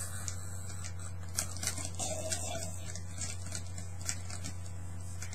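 Rustling of clothing and scattered light clicks as a T-shirt is pulled on over the head, over a steady low electrical hum.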